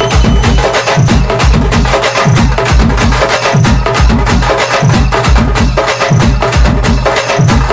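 DJ remix of Hyderabadi chatal band drumming: fast, sharp drum strokes over a heavy, repeating bass beat.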